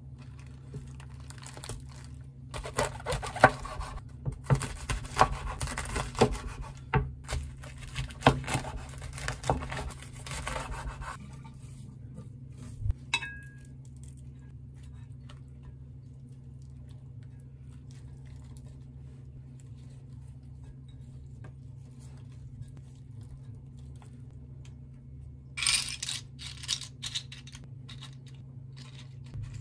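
Crisp crunching and rustling of napa cabbage leaves as a layered stack of cabbage, perilla leaves and beef is handled, with sharp knocks on a wooden cutting board, for several seconds. Near the end a plastic tray crinkles briefly. A low steady hum runs underneath.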